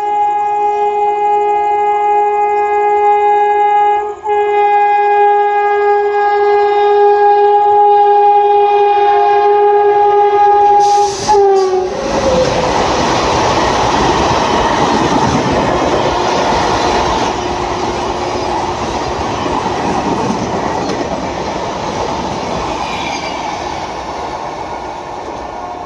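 Locomotive horn of the Ranchi-Howrah Shatabdi Express blown in one long blast of about eleven seconds, with a brief break at about four seconds. Its pitch drops as it cuts off and the train passes. The coaches then rush by with loud wheel and rail noise that slowly fades.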